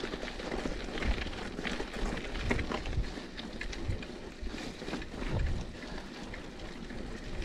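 Mountain bike riding along a dirt singletrack: a steady rush of tyre noise, with frequent small knocks and rattles and a few low thumps as the bike goes over bumps.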